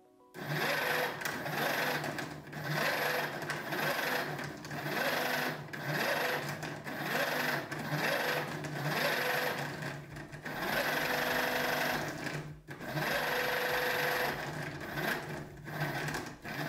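Homemade 3D-printed brushless servo, a 6374 electric-skateboard motor driven by a VESC through a printed herringbone gearbox, running in repeated bursts of a second or two with short gaps as the output arm swings to new positions.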